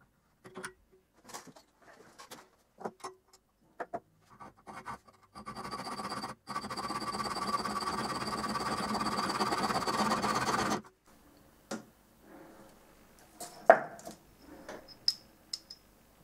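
A saw blade cutting through 9.5 mm copper tube held at a bench vise: after some light handling clicks, a continuous rasp with a steady ringing tone starts about five seconds in and stops abruptly about eleven seconds in. A few sharp clicks of metal parts being handled follow.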